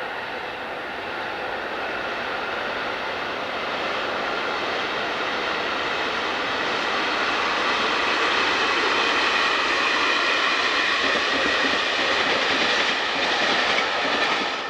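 A passing train, its noise building steadily louder, with a steady high whine over the rumble. It cuts off suddenly at the end.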